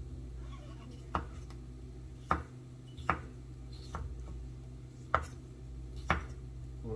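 Chef's knife chopping a cucumber into chunks on a bamboo cutting board: about six sharp knocks of the blade on the board, unevenly spaced.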